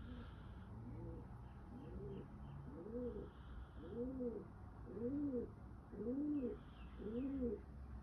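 A bird's low cooing calls repeat about once a second, each hoot rising and then falling in pitch. They grow louder from about three seconds in.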